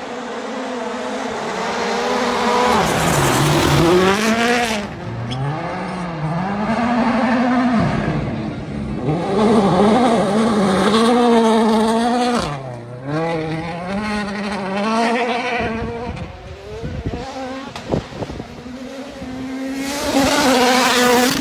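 World Rally Cars' 1.6-litre turbocharged four-cylinder engines at full attack on gravel, several cars in turn. Each engine's pitch climbs and drops sharply again and again through gear changes and lifts, swelling loudest as a car passes about four seconds in, around ten seconds and near the end.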